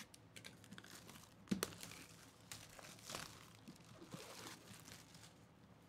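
Clear plastic shrink wrap crinkling and tearing as it is peeled off a cardboard box, with one sharper snap about a second and a half in.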